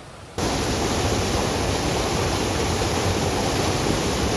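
Loud, steady rush of water pouring and splashing close by, starting suddenly about half a second in.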